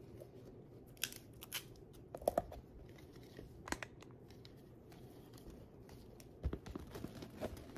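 Crinkling and rustling of a clear plastic bobo balloon and tulle being handled, with scattered light clicks and taps, and a soft thump about six and a half seconds in as it is set on the box.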